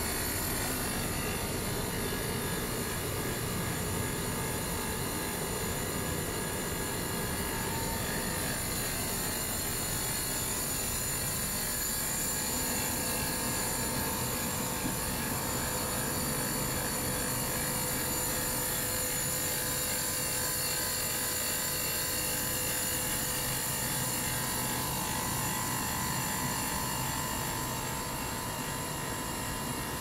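Machinery running steadily: a constant drone with several unchanging high-pitched whines over it.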